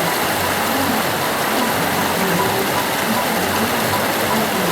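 The Ganges flowing: a steady, even rush of river water.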